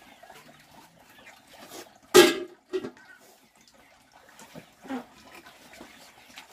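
A short, loud animal call about two seconds in, followed by a few fainter calls.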